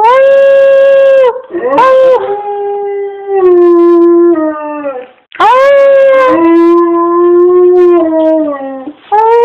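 A dog howling in long drawn-out notes, each held on one pitch and dropping at its end, with a brief break about five seconds in.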